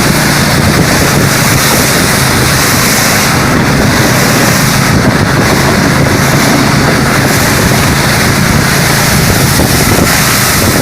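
Snowmobile engine running steadily while under way, with heavy wind noise buffeting the microphone.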